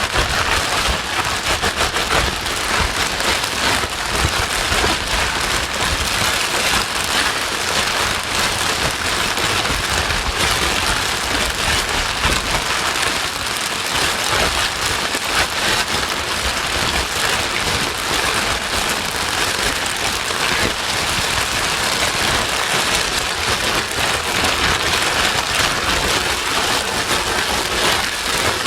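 Steady rain white noise: an even, continuous hiss of rain with fine pattering, unchanging throughout, used as a sleep aid to calm a crying baby.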